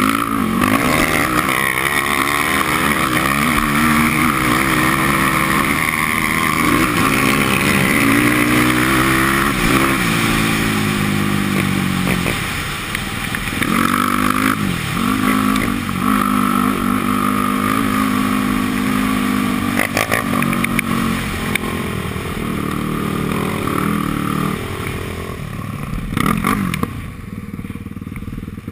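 Yamaha sport quad's engine running hard under the rider, the revs climbing and falling repeatedly as it is driven at speed, heard close up from a helmet-mounted camera. Near the end the revs drop and the engine gets quieter as the quad slows.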